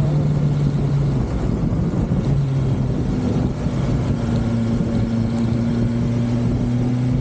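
BMW S1000XR inline-four motorcycle engine running at steady revs under a low rumble. The engine note breaks up about a second in, then holds steady again at a slightly lower pitch.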